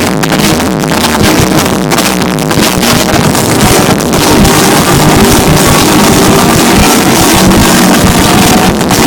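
Loud techno DJ set played over a festival sound system, recorded at a level close to full scale, so the sound is dense and continuous.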